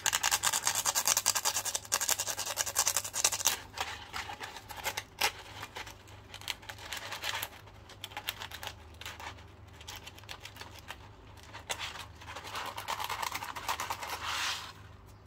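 Coarse sandpaper rubbed back and forth by hand over a small brass contact of a circuit breaker, scrubbing arc-burnt spots off the contact so it will conduct again. Quick scratchy strokes, heaviest for the first few seconds, sparser and quieter through the middle, then a fresh burst near the end.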